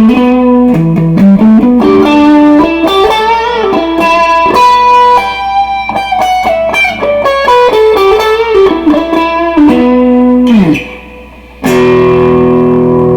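Electric guitar played through Behringer compressor and tube overdrive pedals: a melodic single-note lead line with string bends, ending in a downward slide, a brief pause, and then a chord left ringing.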